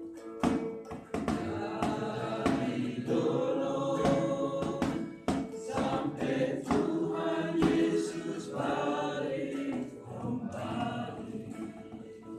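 A group of children singing a church song together, with short sharp strokes keeping a beat through the singing.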